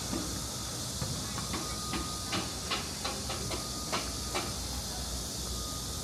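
Steady rush of water flowing in a shallow urban stream, with a quick run of about ten sharp ticks in the middle.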